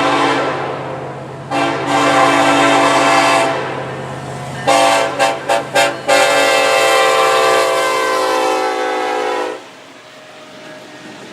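Diesel freight locomotive's air horn sounding in a long, long, short, long grade-crossing pattern, the short part played as four or five quick toots, with the locomotive's engine drone underneath; the last long blast stops sharply about a second and a half before the end.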